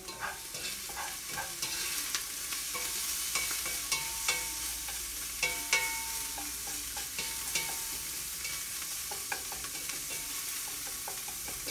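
Onion and chopped garlic sizzling as they fry in oil in a large pot, being sautéed toward golden, while a spoon stirs them and scrapes and knocks against the pot with many short, briefly ringing clicks.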